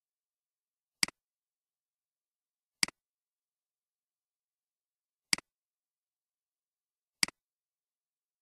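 Four computer mouse-button clicks spaced about two seconds apart, each a sharp click with a quieter second click just after it, like the button's press and release.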